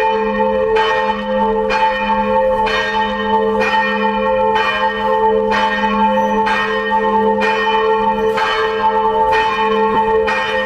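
Church bells of the Saint Domnius bell tower ringing at noon, crazy loud: repeated clapper strikes a little more often than once a second over a steady ringing hum that carries on between them.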